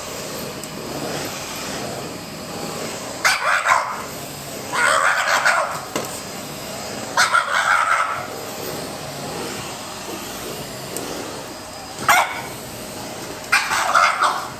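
French bulldog barking in five short bouts with a strained, squeezed-out bark, over the steady noise of a running vacuum cleaner.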